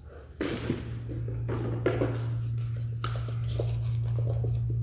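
A cardboard box is handled and set down, with light knocks and rustles as a dog noses at a cardboard tube holding a treat. A low steady hum comes on about half a second in and continues under the handling.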